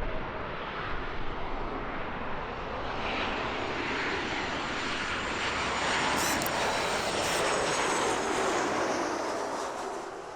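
Commercial airliner flying over, its engine noise a steady rush that swells over the first few seconds, is loudest past the middle and fades toward the end.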